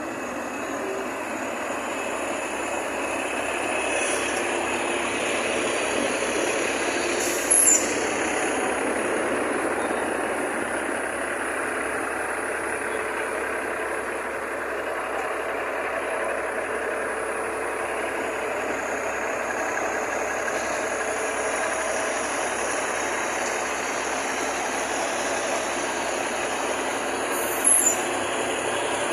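Heavy diesel trucks and road-paving machines running steadily, a constant engine noise, with two brief sharp sounds: one about seven seconds in and one near the end.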